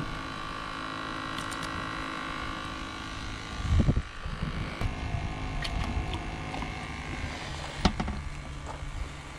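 A steady mechanical hum made of several fixed tones, like a small motor running. A low rumble about four seconds in and a couple of sharp clicks of handling later on.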